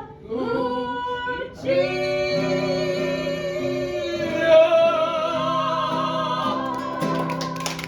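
A singer holding one long, wavering note over sustained instrumental accompaniment, with clapping starting near the end.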